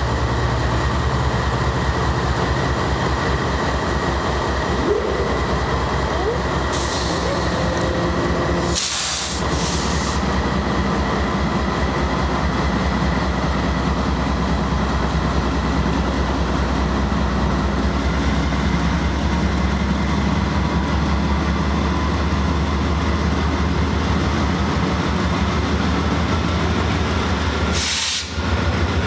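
BNSF freight train with GE diesel locomotives passing close by, engines running with a steady low drone, then cars rolling past. Short hisses come about seven to ten seconds in and again near the end.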